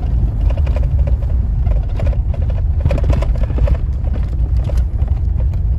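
Pickup truck driving, heard from inside the cab: a steady low rumble of engine and tyres, with irregular knocks and rattles as it jolts over rough ground.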